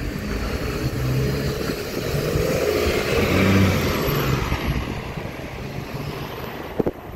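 Mercedes-Benz Citaro city bus's diesel engine pulling away and passing close by, getting louder to a peak about three to four seconds in, then fading as the bus drives off. A short sharp click near the end.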